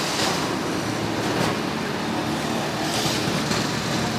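Steady street traffic noise with a few faint swells of hiss.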